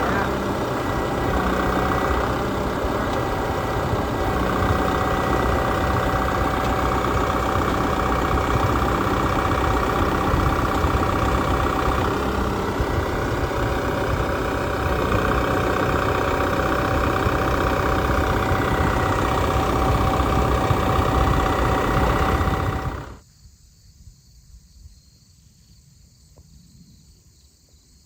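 Tractor engine running steadily at an even speed. It cuts off abruptly near the end, leaving faint crickets.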